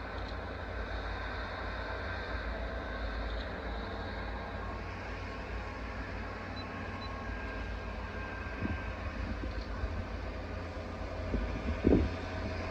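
Heavy-haulage tractor unit's diesel engine running at low speed under load, pulling a multi-axle trailer with a 225-tonne transformer: a steady low rumble. Wind buffets the microphone near the end.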